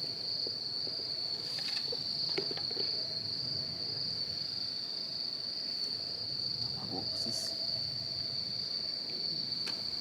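Insects trilling in a steady, unbroken high chorus, with a few faint clicks.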